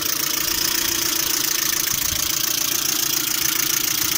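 Lada Priora engine idling with a steady knocking that is present both cold and hot. The owner first suspected the hydraulic lifters, but he says it does not sound like them; he places it on the timing-belt side and thinks it could be the water pump, since the engine also overheats.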